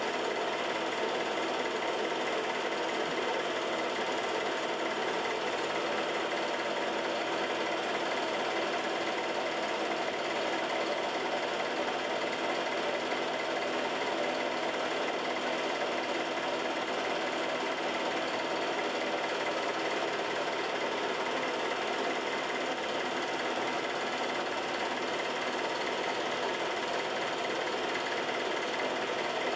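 Home-movie film projector running steadily: an even, unbroken mechanical whir of its motor and film transport.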